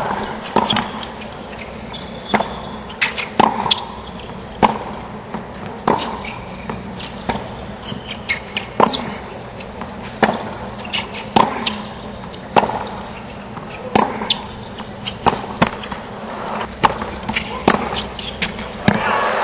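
Tennis ball struck back and forth by rackets and bouncing on a hard court in a long rally, sharp pops about every second over a low crowd murmur. Crowd noise swells right at the end as the point finishes.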